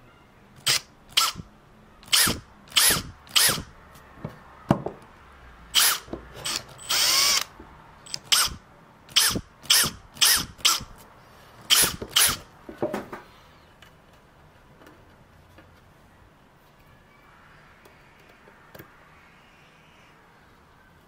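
Power drill with a small twist bit boring pilot holes into birch for hinge screws, the trigger pulsed in about twenty short bursts, each spinning up and back down, with one longer run about halfway through the drilling. The drilling stops about two thirds of the way in.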